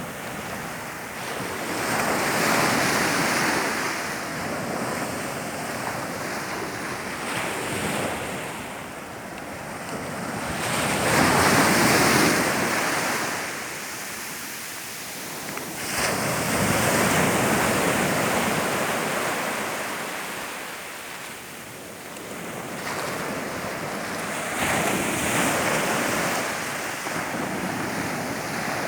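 Mediterranean surf: waves breaking and washing on the beach, the noise rising and falling in slow swells every several seconds.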